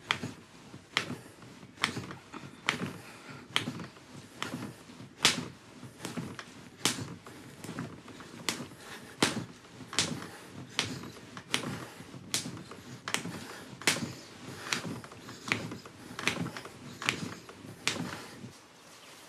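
A bed knocking in a steady rhythm under two people having sex, a sharp knock a little more often than once a second.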